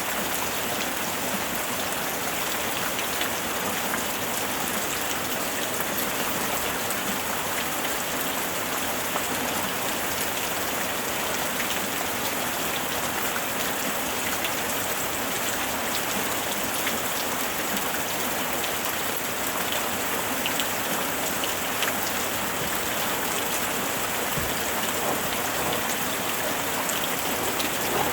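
Steady rain falling, an even hiss of rainfall with many small drop taps scattered through it and no thunder.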